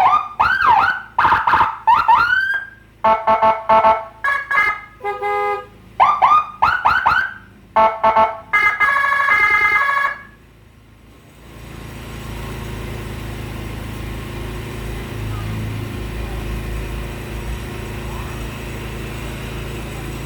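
Aftermarket electronic siren on a Honda Vario scooter cycling through its tones: short rising whoops, quick steady blasts and a lower horn-like tone, stopping suddenly about ten seconds in. After it, a steady low engine rumble.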